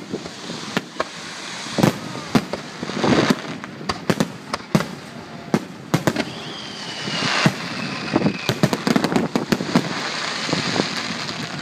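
Aerial fireworks shells bursting in a rapid barrage of sharp bangs. A whistle falls slowly in pitch about halfway through, and dense crackling fills the last few seconds.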